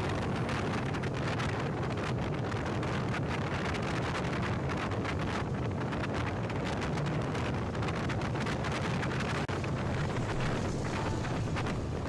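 Steady wind rush buffeting the microphone on a moving motorcycle, with the steady drone of a Hero Honda Splendor Plus's small single-cylinder four-stroke engine and its tyres on tarmac underneath.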